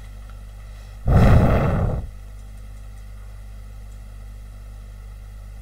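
A single rush of air noise on the microphone, lasting about a second and starting about a second in, over a steady low hum.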